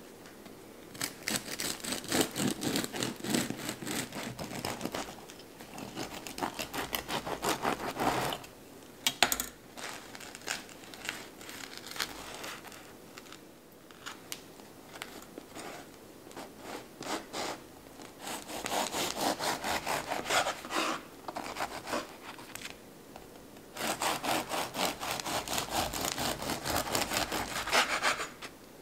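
A serrated bread knife sawing through a loaf of bread, in bouts of quick back-and-forth strokes a few seconds long, with short pauses between slices.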